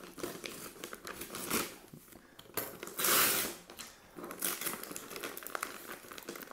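Brown paper and clear packing tape on a parcel crinkling and tearing under the hands as it is pulled open, in irregular rustles, with the loudest, longest rip about three seconds in.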